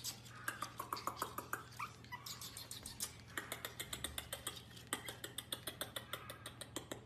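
Pomeranian puppy scratching and pawing at the wooden bars of a playpen: a rapid run of small sharp clicks and scratches, with a few faint high whimpers between one and two seconds in.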